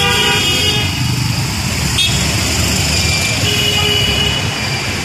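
Heavy mixed road traffic at a city intersection: the engines of cars, auto-rickshaws and motorcycles running in a steady rumble. A vehicle horn ends just after the start, and another horn sounds for about a second near the end.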